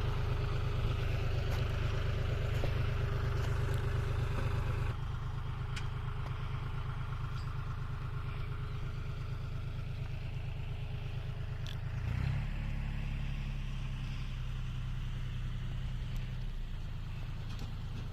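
A motor vehicle or machine engine running steadily with a low, even pulsing. It drops abruptly in level about five seconds in and shifts in pitch about twelve seconds in.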